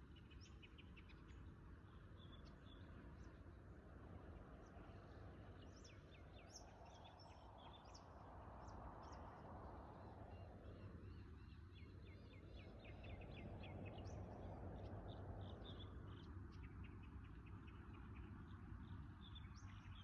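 Small birds chirping and twittering in quick repeated trills, faint, over a low rush of background noise that swells and fades twice.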